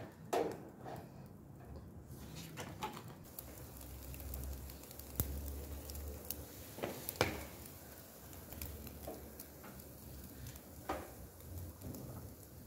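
Lamb kebabs sizzling over a charcoal grill, with a soft hiss and scattered pops and crackles from the coals and dripping fat.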